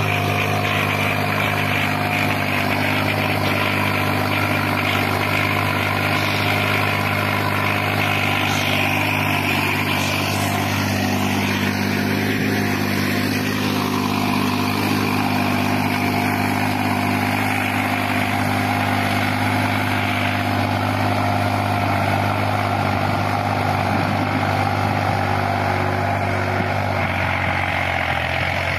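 New Holland 5620 tractor's diesel engine running steadily under load as it pulls a 15-tine cultivator through the soil.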